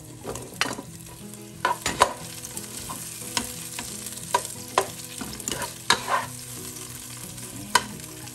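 Tomato wedges, onion and garlic sizzling in hot oil in a nonstick pot while a plastic spatula stirs them, scraping and tapping against the pot at irregular intervals about once a second.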